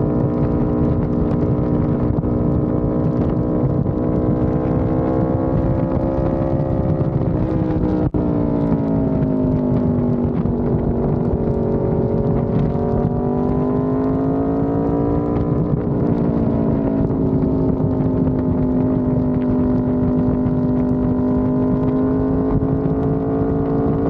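Aprilia RSV4 1100 Factory's V4 engine, breathing through a Racefit aftermarket exhaust, running under way at a steady cruise. Its note sinks and rises gently, with a brief break about eight seconds in.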